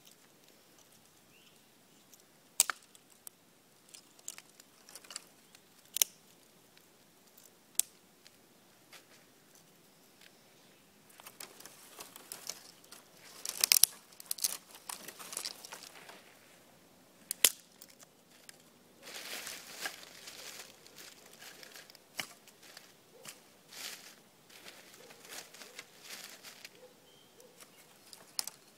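Dead twigs snapped by hand, sharp single cracks every few seconds, with stretches of rustling and crunching as sticks and leaf litter are handled.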